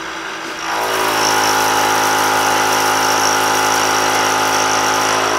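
Milling-machine dovetail cutter taking a heavy cut in a block of aluminum at 3000 RPM. About half a second in, the cutter bites and a loud, steady whine of several tones rises over the machine's running hum, then holds.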